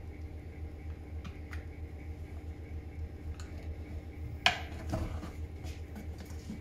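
Faint clicks and scrapes of a screwdriver on a backpack sprayer's plastic tank. About four and a half seconds in there is a sharp knock and a short clatter as the tank and its metal carrying frame are turned on the workbench. A steady low hum runs underneath.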